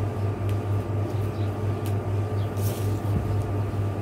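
A steady low hum with a slight regular pulsing, and a few brief soft rustles of satin fabric being handled.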